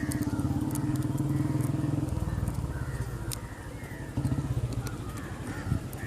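Harley-Davidson Dyna Street Bob's air-cooled V-twin idling through a custom-built exhaust, a steady pulsing beat; its tone shifts slightly about two seconds in.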